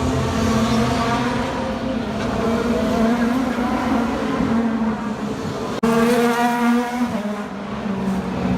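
IndyCar race cars' 2.2-litre twin-turbo V6 engines running at speed on the street circuit, with a sudden break about six seconds in.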